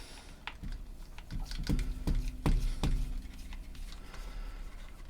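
A run of sharp plastic clicks and knocks, about seven in the first three seconds, from the parts of a pair of Sennheiser HD202 headphones being handled and fitted together.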